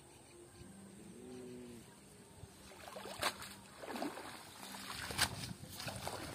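Water splashing and streaming off a cast net as it is hauled out of a pond hand over hand, in a string of splashes from about halfway through, the loudest a little after five seconds. A faint pitched call sounds briefly near the start.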